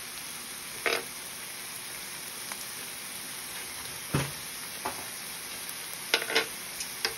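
Thin slices of meat sizzling steadily on an electric hot plate, with a few sharp clicks of metal tongs against the plate: about a second in, just after four seconds, and a quick cluster near the end.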